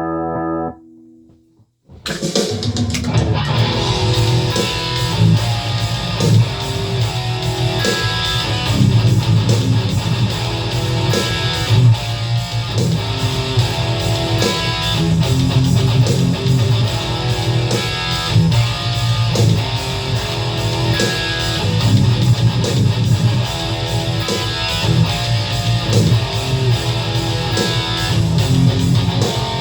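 Distorted electric guitar playing metal riffs over a drum-machine beat; the guitar is an ESP LTD EC-10 through a Boss Metal Core ML-2 distortion pedal into a Line 6 Catalyst amp. A held chord cuts off within the first second, there is a brief silence, and the playing starts about two seconds in.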